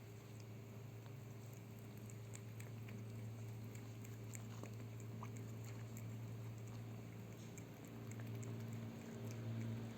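Faint scattered small clicks of a mother cat licking and chewing, over a steady low hum.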